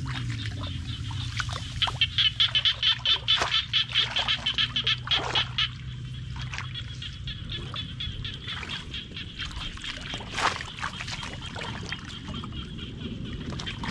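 Shallow muddy water sloshing and splashing as a bamboo fish trap is worked into it, with one sharp splash about ten seconds in. Over it runs a high, rapid pulsing animal call, loudest from about two to six seconds in.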